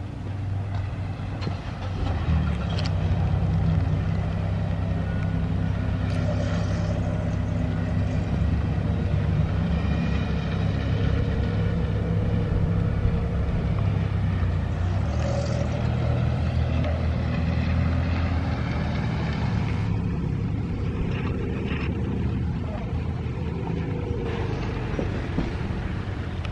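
A vehicle engine running with a steady low drone. It swells about two seconds in and eases off after about twenty seconds.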